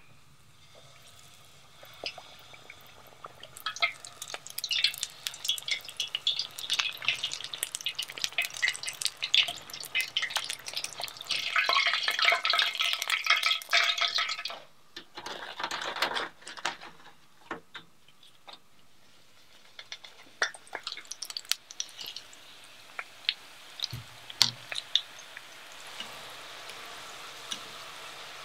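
Battered cod deep-frying in hot oil, crackling and sizzling with many small pops. The sizzle is loudest and densest from about 12 to 14 seconds in, then thins to scattered pops over a steady hiss.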